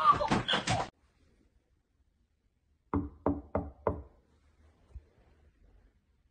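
Four quick knuckle knocks on a wooden dresser drawer front, about three a second, each with a short hollow ring, coming about halfway through. A brief jumble of other sound fills the first second.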